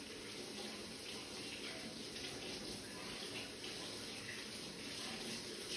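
Water running steadily from a faucet while hands are washed under it.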